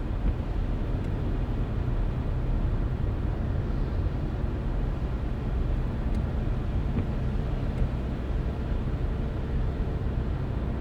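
Car driving at a steady speed: an even low rumble of tyres on the road and the engine, with a few faint ticks.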